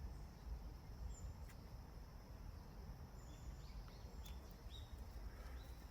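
Faint outdoor ambience: a steady low rumble with a few faint, short high chirps about a second in and again around three to four and a half seconds in.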